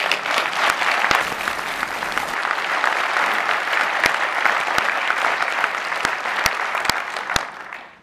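Audience applauding: a dense clatter of many hands clapping that starts abruptly and dies away about seven and a half seconds in.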